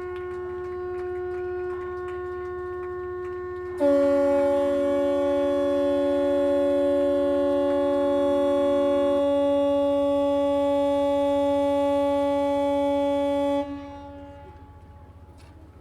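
Two long, steady horn blasts at different pitches overlapping. The second, lower and louder blast joins about four seconds in; the first stops about nine seconds in and the second about fourteen seconds in.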